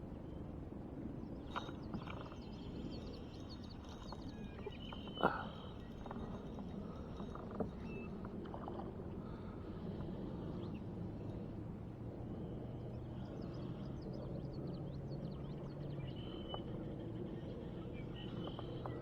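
Steady outdoor river ambience: water running, with small birds chirping on and off. Two sharp knocks, the louder about five seconds in, and a faint low hum in the second half.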